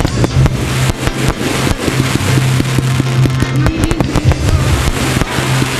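Aerial fireworks going off in quick succession, many sharp bangs and crackles, over loud music with a steady bass line.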